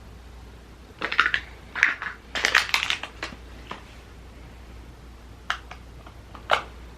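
Packaging handled by hand while a pin is unboxed: a few seconds of crinkling and rustling, then a few short, sharp clicks.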